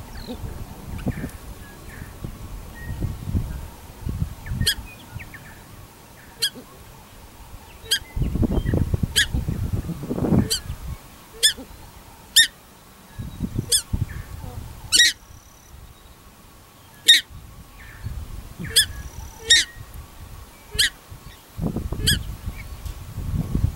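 Paradise shelducks calling: a long series of short, shrill honks, roughly one or two a second, starting a few seconds in. Gusts of wind rumble on the microphone.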